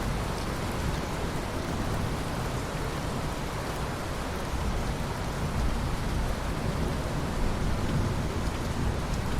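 Steady heavy rain falling on forest vegetation, an even hiss with a deep rumble underneath.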